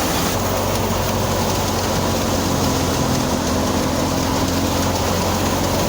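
Engine of a harvesting machine running steadily, with a constant low hum and a mechanical rush that do not change.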